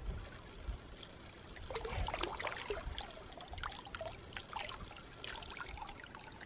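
Lake water splashing and trickling faintly around a person's legs as he wades in step by step, in small irregular splashes.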